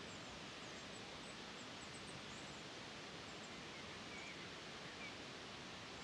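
Faint, steady hiss of running water, with short, high bird chirps scattered through it, most of them in the first half.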